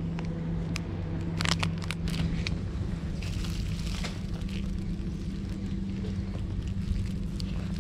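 Steady low mechanical hum and rumble, with a few short crackles and rustles of something being handled.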